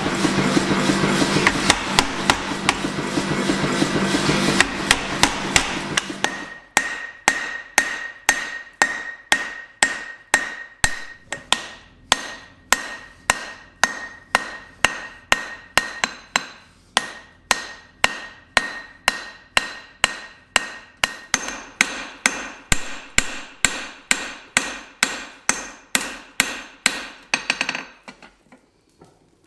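Hammer blows on steel over an anvil, forging a small cross-peen hammer head from C45 steel: even strikes about two and a half a second, each with a bright ring. For about the first six seconds the strikes come denser over a steady mechanical hum, and the hammering stops near the end.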